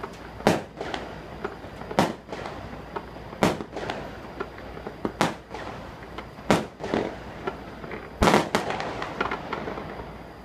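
Aerial fireworks bursting: a loud bang about every one and a half seconds, with lighter crackling between. Two bangs come close together a little after eight seconds, then the crackle dies away.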